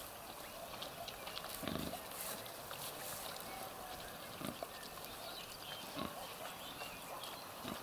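A nursing sow grunting low and short, four times at intervals of one to three seconds, while her piglets suckle, over a steady light rustle with small clicks.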